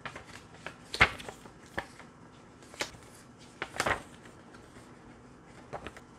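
A clear plastic DVD case and its paper booklet being handled: a series of sharp plastic clicks and paper rustles, loudest about a second in and again in a cluster near four seconds.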